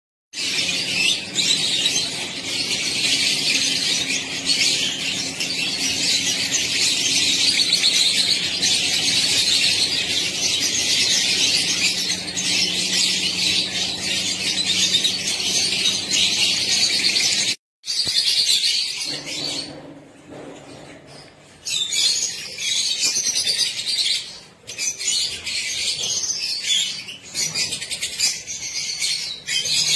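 A flock of budgerigars chattering and chirping continuously in a dense, overlapping din, over a low steady hum. The sound cuts out abruptly for a moment a little past halfway, then returns in patchier bursts.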